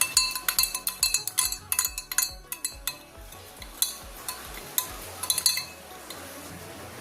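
A spoon clinking against the tea pot as it stirs, quick clinks at first, then slower scattered ones, mixing jaggery syrup into the boiling black tea.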